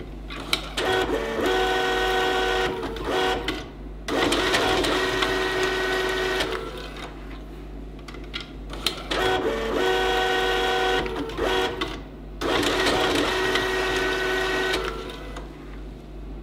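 Brady Wraptor A6200 cable label printer-applicator printing and wrapping labels onto a cable in two cycles. Each cycle is a few seconds of steady motor whine followed by a few seconds of harsher whirring, with short pauses between.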